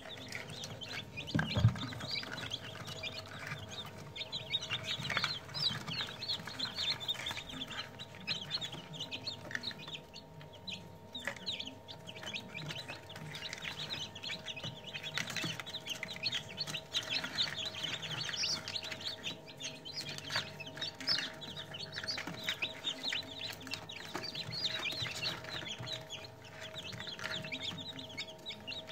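A crowd of newly hatched chicks of the Kosovo tricoloured and Piklajka breeds peeping continuously in the hatching tray of an incubator, over a steady hum. A single loud knock comes about one and a half seconds in as the wooden incubator drawer is pulled open.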